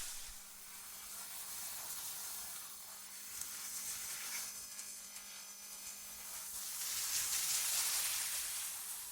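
Synthetic wind ambience: an airy hiss that swells and eases in slow gusts, rising to its strongest near the end, over a faint steady hum.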